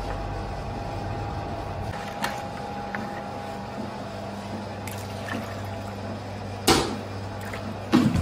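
Wire whisk beating a thin flour batter in a plastic bowl, over the steady hum of a running bakery dough mixer. A sharp knock comes about two-thirds of the way through and a clatter near the end as the bowls are handled.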